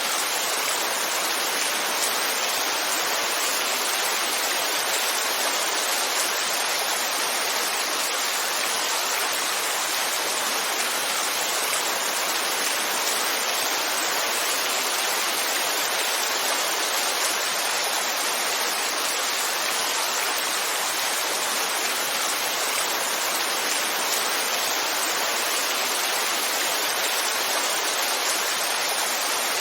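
Heavy rain falling as a steady, even rush of noise, without separate drops or thunder standing out.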